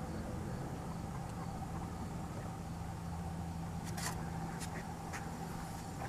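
A steady low mechanical hum, with a few sharp clicks about four to five seconds in.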